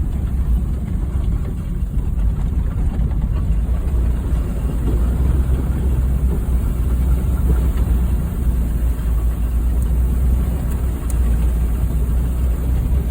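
Honda Fit's engine running steadily as the car drives along a rough off-road trail: a constant low rumble with an even rushing noise over it.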